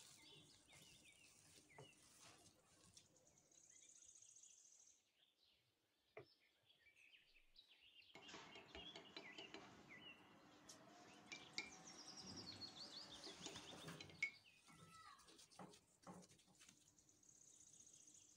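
Very quiet background with a few faint, high, bird-like chirps. Soft rustling and clicking handling noises thicken between about 8 and 14 seconds in.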